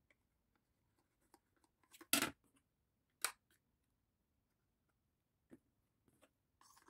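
Quiet handling noises: a few light knocks and paper rustles as a card pencil box and a plastic glue bottle are picked up and handled, the loudest knock a little over two seconds in and another about a second later.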